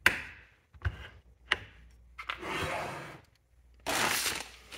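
A few sharp clicks and knocks as a Champion 3000 lb winch is handled on a wooden workbench, then clear plastic packaging rustling, loudest near the end.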